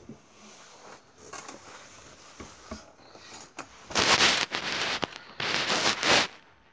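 Handling noise on a phone's microphone: faint rustling and scraping, then two loud rubbing bursts, each about a second long, as a hand brushes close over the phone.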